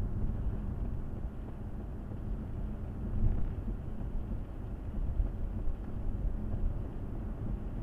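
Car driving on a wet road, heard from inside the cabin: a steady low rumble of tyres and engine that swells slightly now and then.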